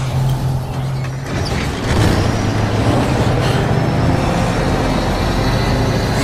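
Action film score playing over the steady running of heavy truck engines in a chase. The mix gets louder about two seconds in.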